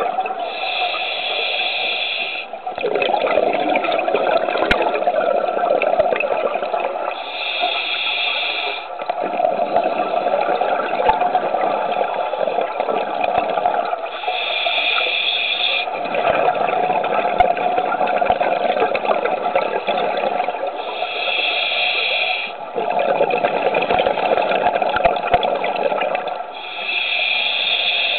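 Scuba diver breathing through a regulator underwater. A high hiss of about two seconds on each inhale comes roughly every six and a half seconds, five times, and each is followed by a longer bubbling rush of exhaled air.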